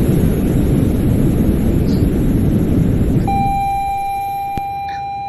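Schindler elevator cab rumbling as it travels. The noise eases off about three seconds in, as a steady electronic beep tone starts and holds.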